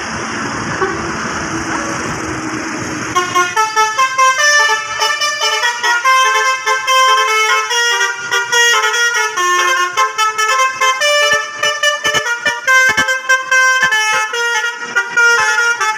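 A bus's basuri telolet horn playing a fast melody of pitched horn notes that change several times a second. It starts about three seconds in, after a stretch of steady background noise.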